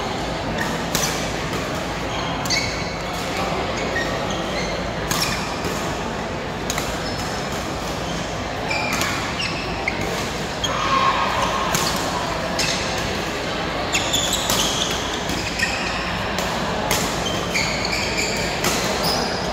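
Badminton rackets hitting shuttlecocks, sharp irregular hits from several courts at once, echoing in a large hall, over a background of voices.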